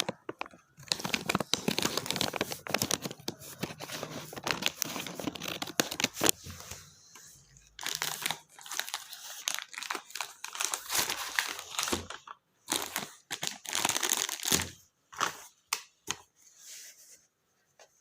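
Colour set packaging crinkling and tearing as it is opened by hand. It comes in three spells of dense crackling with short pauses between, then only a few scattered rustles near the end.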